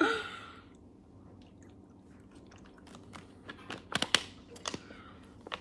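A person chewing close to the microphone: a short breath at the start, then scattered crisp clicks and crunches in the second half.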